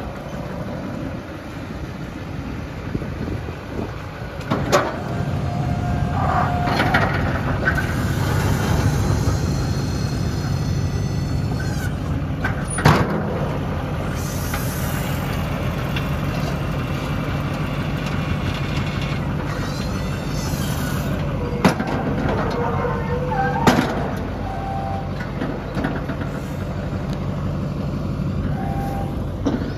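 A 2007 GMC 2500HD pickup's engine idling steadily. A few sharp knocks come through, and at times a higher whine rises and falls over it.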